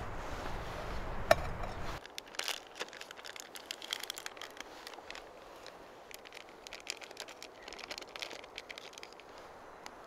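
A short stretch of steady outdoor noise with one sharp click, then quieter irregular crinkling and clicking.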